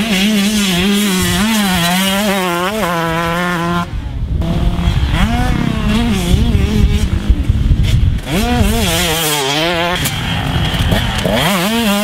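2019 KTM 125SX's 125cc single-cylinder two-stroke engine revving on a motocross track, its pitch rising and falling continually as the throttle is worked. The sound breaks off and jumps to another pass about four seconds in and again near eight seconds.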